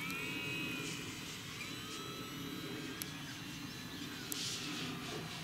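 Small electric park-flyer RC airplane in flight, its motor and propeller giving a high whine that rises and falls in pitch as the throttle and distance change.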